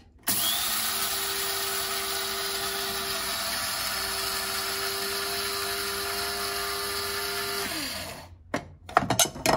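Small electric spice grinder grinding whole flaxseed into meal, its motor running steadily for about seven and a half seconds, then winding down with a falling pitch as it is switched off.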